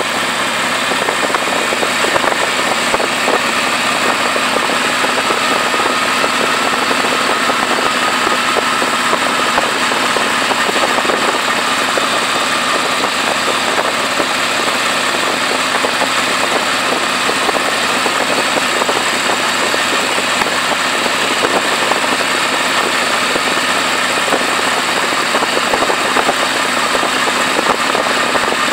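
A motorcycle engine running at a steady cruising speed under a constant rush of wind over the microphone.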